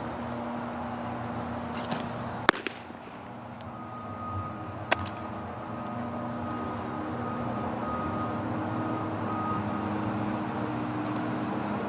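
Steady outdoor background hum, broken by two sharp cracks: a loud one about two and a half seconds in and a smaller one about five seconds in.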